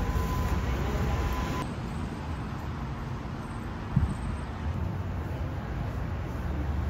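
Street ambience of steady road-traffic rumble, turning a little quieter about one and a half seconds in, with one short knock about four seconds in.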